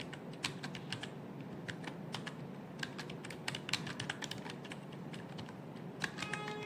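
Typing on a computer keyboard: irregular runs of key clicks with short pauses between them. Near the end a few steady musical tones come in over the typing.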